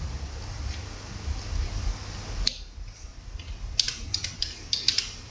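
A low rumble, then a single sharp click about two and a half seconds in and a quick run of short sharp clicks near the end.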